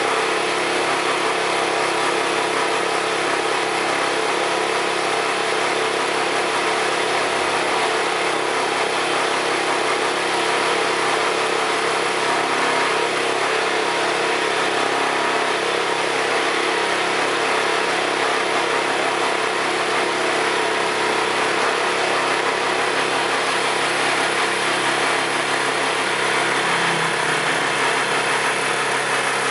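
Steady machine noise like a running engine, with a few constant tones over an even hiss. It stays at the same level throughout.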